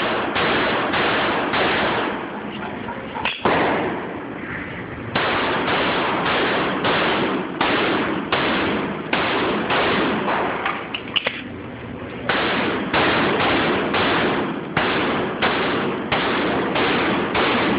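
Beretta 92FS 9mm pistol fired in fast strings of shots, about two a second, each shot echoing off the walls of an indoor range. There is a pause of a second or two about three seconds in, after a sharp click, and a brief break about twelve seconds in.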